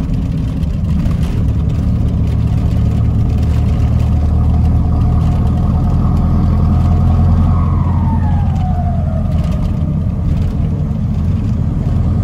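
Ford F1000 pickup's turbodiesel engine running under way, heard from inside the cab, its low drone building for several seconds. Past the middle, a high turbo whistle slides down in pitch.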